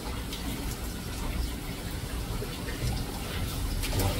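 Steady running water from a kitchen tap over a low rumble.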